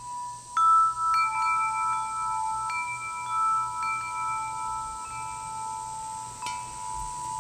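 Wind chimes ringing: a handful of bell-like notes struck one after another, each ringing on and overlapping the others, with a cluster of strikes about six and a half seconds in.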